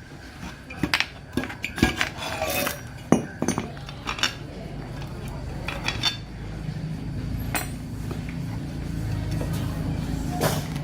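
Metal tools clinking and knocking against metal in a quick irregular series of sharp clicks. About six and a half seconds in, a steady low hum joins.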